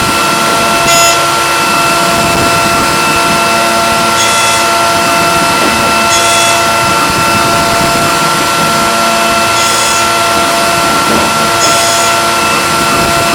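CNC milling machine running with a steady multi-tone spindle whine, with short hissing bursts every few seconds.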